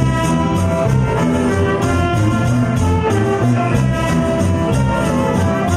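Live Latin band playing with a steady beat: saxophones carry sustained melody lines over keyboard, guitar and drum kit.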